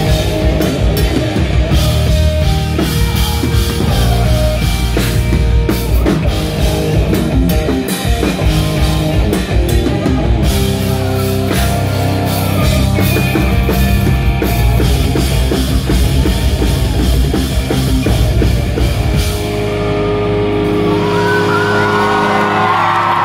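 Post-hardcore band playing live and loud: pounding drum kit with distorted guitars and bass. About 19 seconds in the drums drop out and the guitars are left ringing on held chords as the song closes.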